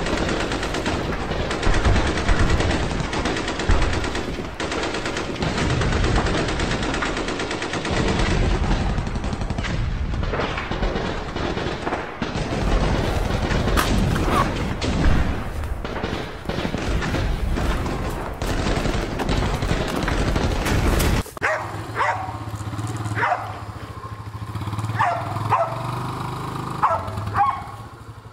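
Dense battle sound effects: rapid machine-gun fire and gunshots with booms, running continuously. About three quarters of the way in it gives way to a steady low engine hum with several short, sharp pitched cries over it.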